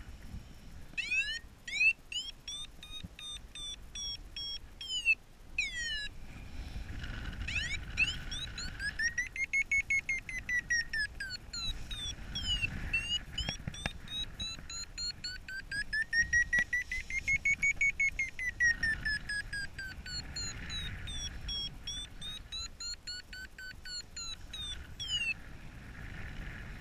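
Paragliding variometer beeping in fast pulses, its pitch gliding up and down as the climb rate changes: the audio signal of the glider climbing in a thermal. Low wind rumble on the microphone underneath.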